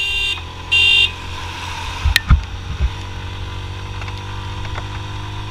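Two short horn beeps in the first second, over the steady running of the motorcycle's engine. Strong wind buffets the microphone throughout, with a few low gusts a couple of seconds in.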